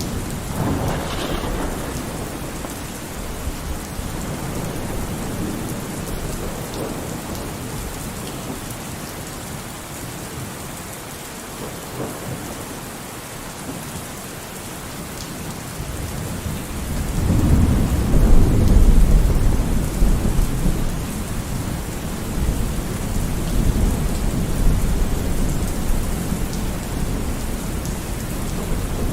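Steady rain falling with rolls of thunder: a rumble near the start, then a louder, longer rumble building about halfway through and rolling on.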